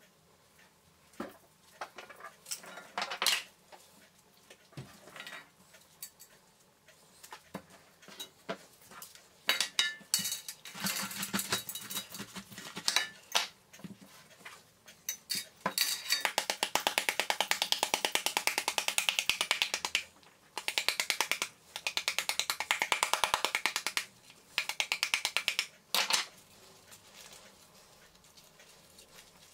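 Pomegranate seeds dropping and pattering into a stainless-steel pan as a pomegranate is broken apart by hand over it. There are scattered clicks at first, then several bursts of dense, rapid pattering in the second half.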